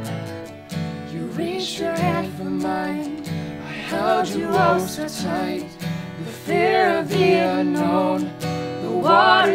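Folk song: strummed acoustic guitar with a woman and a man singing long held notes over it.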